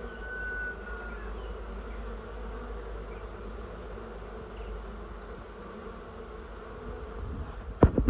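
A honey bee swarm buzzing steadily, the hum of many bees close by. Near the end, two sharp thumps.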